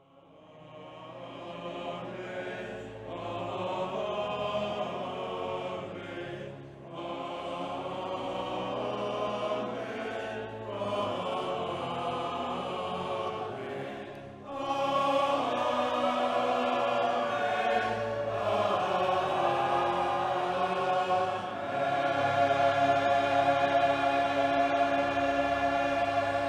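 A choir singing in long phrases with brief pauses between them, fading in at the start and swelling louder about halfway through.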